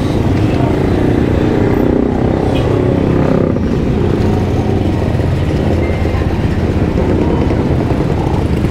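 Loud, steady street traffic noise, with an engine running close by for the first few seconds.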